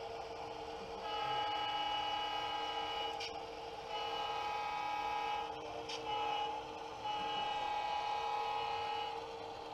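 HO-scale model diesel locomotive's horn sounding the grade-crossing pattern: two long blasts, a short one, then a long one, starting about a second in. A steady low hum runs underneath.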